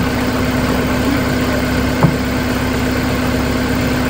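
Engine of a truck-mounted aerial lift idling steadily with a constant hum, and a single sharp knock about halfway through.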